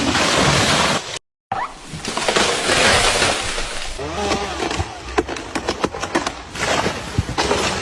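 A felled tree coming down: a loud rushing crash, then after a short break, a run of sharp cracks and snaps of breaking wood among rustling branches.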